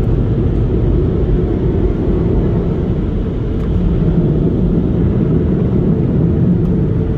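Automatic car wash heard from inside the car cabin: rotating brushes and hanging cloth strips sweeping over the bodywork, with a loud, steady, low rumble.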